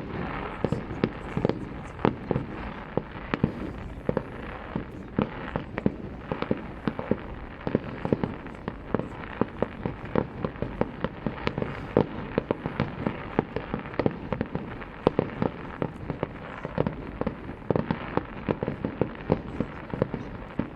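Aerial fireworks display: a dense barrage of shell bursts, several sharp bangs a second, with louder single reports standing out every few seconds.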